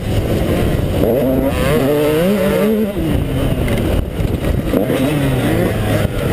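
KTM 150XC two-stroke dirt bike engine running, its revs rising and falling several times.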